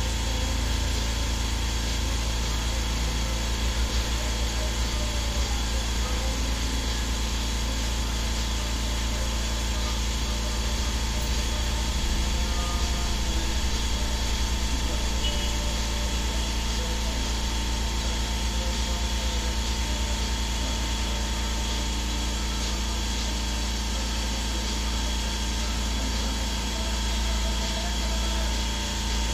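A steady machine hum with several constant tones, unchanging in level throughout.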